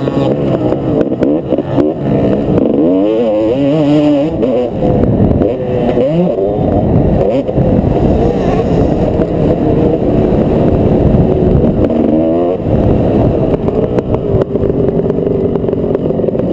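Dirt bike engine running hard around a motocross track, heard from the rider's helmet camera, its pitch repeatedly climbing and dropping as the rider accelerates, shifts and backs off.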